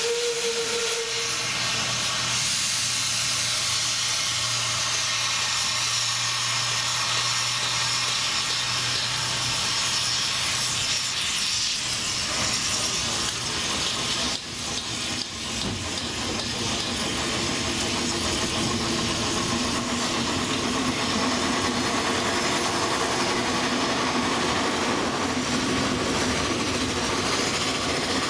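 Steam locomotive blowing off hissing steam, with a short high note near the start, then the train of wagons rumbling along the rails as it moves off, the hiss giving way to running noise from about halfway.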